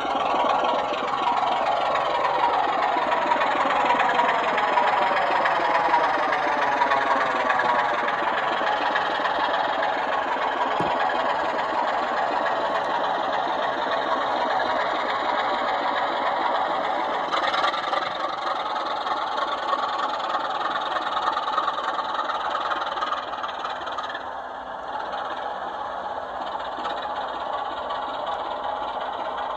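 Sound-fitted model Class 24 diesel locomotives running as a pair, their loudspeakers playing a steady diesel engine sound with the wheels rumbling on the track. The sound swirls and sweeps in pitch for the first several seconds as they pass close, then grows a little quieter near the end.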